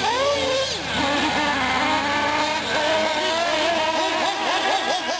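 Several nitro-powered 1/8-scale RC trucks' small two-stroke glow engines running together on the track, each whining high and rising and falling in pitch as the throttle opens and closes.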